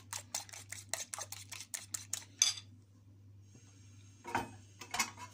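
Eggs being beaten in a bowl with a utensil: quick rhythmic clinks, about four to five a second, that stop about two and a half seconds in, followed by a couple of separate knocks near the end.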